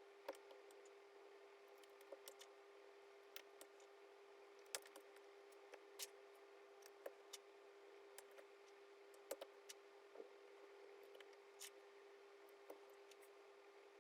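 Gateron Yellow mechanical keyboard switches being pressed into a keyboard plate one at a time, each seating with a sharp click, about a dozen clicks at irregular intervals over a steady faint hum.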